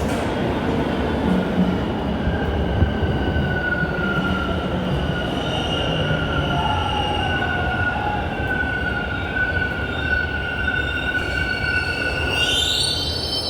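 Toronto subway train running on Line 2: a steady low rumble with drawn-out high squealing tones from the wheels on the rails, and a whine rising in pitch near the end.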